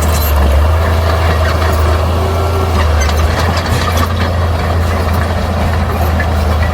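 Heavy earthmoving machine's diesel engine running steadily with a strong low drone.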